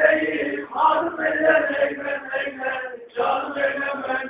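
Men singing together in a chant with long held notes, breaking off briefly about three seconds in.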